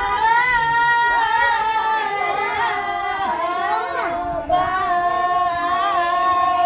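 Women singing a Maithili devotional song to the goddess Bhagwati (Bhagwati geet), without instruments, in long held notes with a wavering melody.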